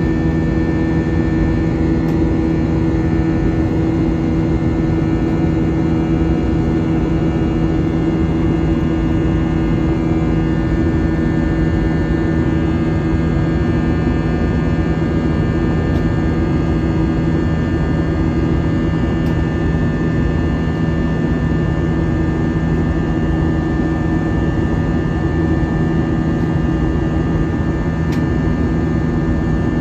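Airbus A320 cabin in flight: a steady rush of airflow with the even hum and tones of its IAE V2500 engines, unchanging throughout.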